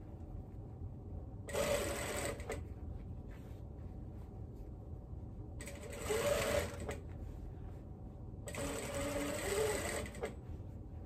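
Sewing machine stitching in three short runs, each lasting about a second to a second and a half, with pauses between them.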